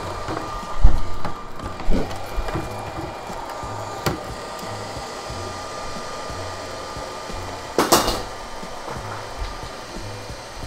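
Roomba robot vacuum running with a steady whirring hum, knocking and bumping several times. The loudest knock comes about a second in, and another sharp clatter comes near eight seconds.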